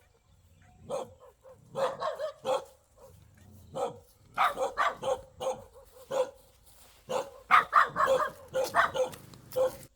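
Dog barking repeatedly in short runs of sharp barks.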